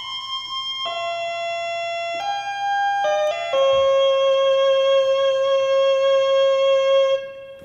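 Ondes Martenot, an early electronic instrument, playing a slow line of single sustained tones that step from one pitch to the next, then settle on one long held note with a slight waver for about three and a half seconds before it fades out near the end.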